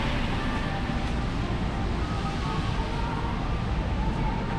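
Rainy city street ambience: a steady wash of traffic and tyres on wet road, with faint high tones coming in about a second and a half in.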